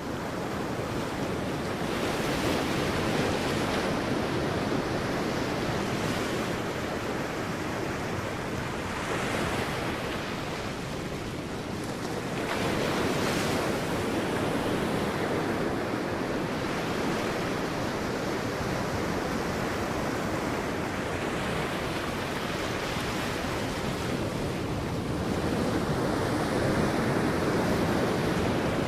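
Sea waves breaking on a beach: a continuous surf wash that swells and subsides every few seconds.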